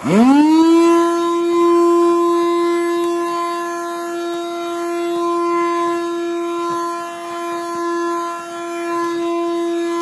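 Black & Decker lithium cordless handheld vacuum switched on: its motor spins up in a quick rising whine within the first half second, then runs loudly at a steady whine.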